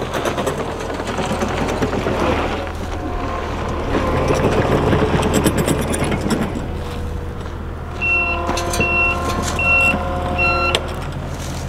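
Skid steer running with a steady low engine hum and rattling as it works, then its backup alarm beeps four times, evenly spaced, as it reverses, starting about eight seconds in.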